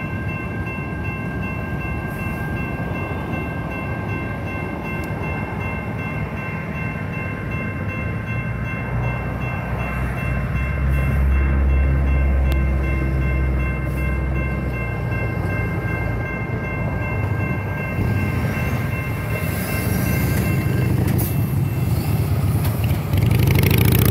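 Electronic railroad crossing bell ringing steadily over the low rumble of an MTS trolley passing the crossing. The bell stops about three seconds before the end, and a box truck's engine grows loud as it drives over the tracks.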